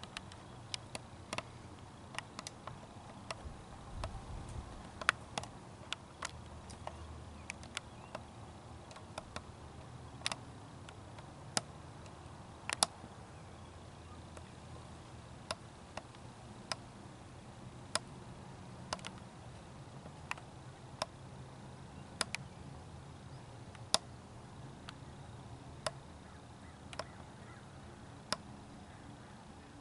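Irregular sharp clicks, roughly one a second, over a faint low steady rumble.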